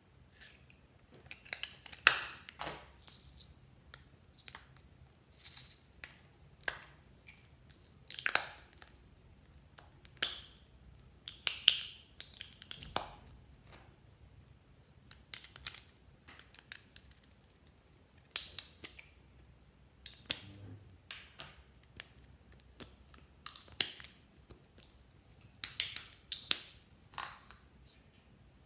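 Slime being handled and squeezed: scattered, irregular sticky clicks and crackling pops.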